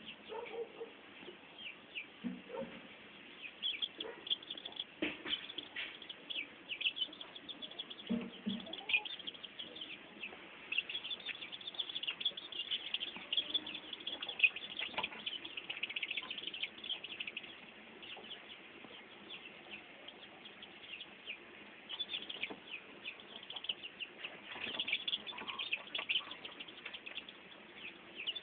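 Chicks peeping as they huddle to sleep: many short, quick chirps. The chirps are densest through the first half, thin out for a few seconds, then pick up again near the end.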